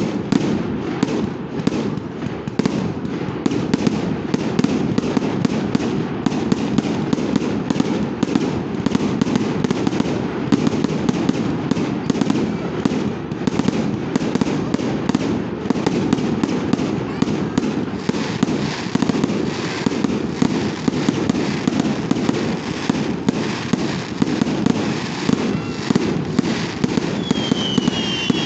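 Fireworks display: a rapid, continuous run of sharp bangs and crackles from aerial shells bursting, over a steady low rumble. Near the end a rising whistle comes in.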